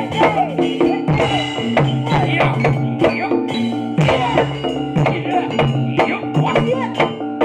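Traditional Indonesian gamelan-style music: rhythmic hand-drum strokes with bending pitch over steady ringing metallophone and gong tones.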